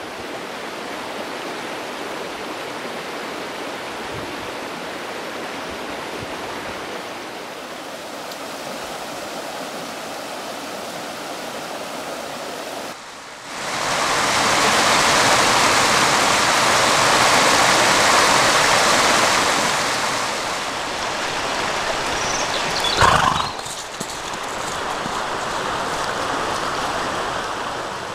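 Shallow rocky stream running over stones, a steady rushing. About 13 s in it cuts to a louder, brighter rush of white water close to the microphone. A brief sharp sound stands out about 23 s in.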